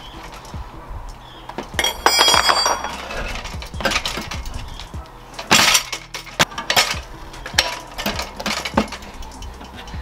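Metal tools knocking, clinking and scraping against a dirt bike wheel rim as a knobbly tyre is forced onto it, at the first stretch of bead, the hardest part. Irregular sharp knocks, with a loud ringing metallic clatter about two seconds in and several more strong knocks in the second half.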